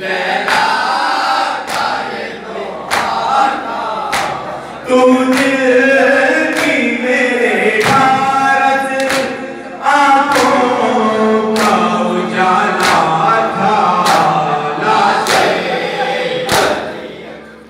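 A group of male voices chanting an Urdu noha in unison behind a lead reciter, with evenly spaced thuds of hands beating on chests (matam) keeping the beat, about three every two seconds.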